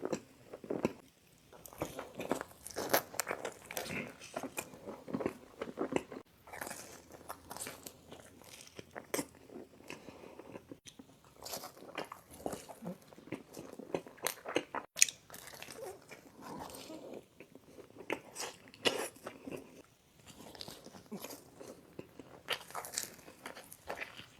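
Close-miked mukbang eating: repeated crunchy bites into crisp pizza crust, with chewing between them at an irregular pace.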